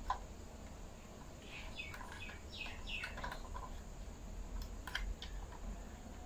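Faint bird chirping: a quick run of short, falling calls in the first half, with a few light clicks from a diecast model car being handled.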